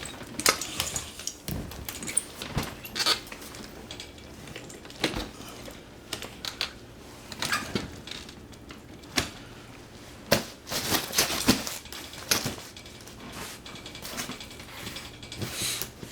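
Irregular light clicks and knocks, scattered unevenly, with a few louder taps about ten to twelve seconds in.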